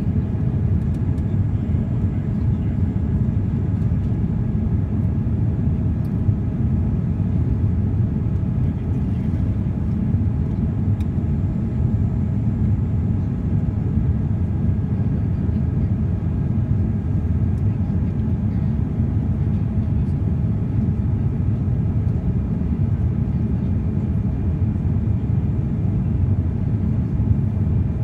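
Steady jet airliner cabin noise: a low rumble of the engines and airflow with faint steady whining tones above it.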